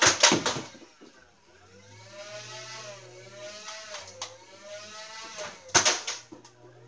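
Motorized Nerf flywheel blaster whirring, its motor pitch wavering up and down, with two loud rapid bursts of shots: one right at the start and one about six seconds in.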